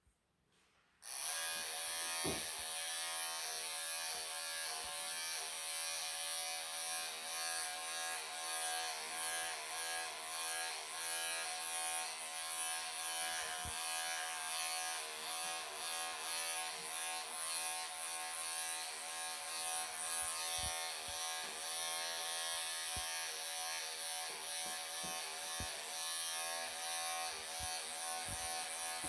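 Bravura cordless pet clippers switching on about a second in and running with a steady electric hum while clipping a longhaired Persian cat's thick coat. A few faint knocks come through here and there.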